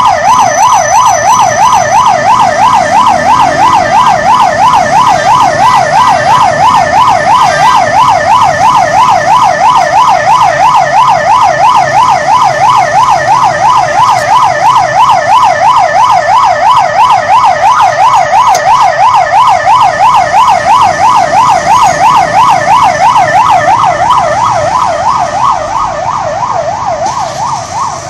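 Police vehicle's electronic siren sounding a fast warbling wail, its pitch sweeping up and down several times a second, loud and steady, then fading over the last few seconds.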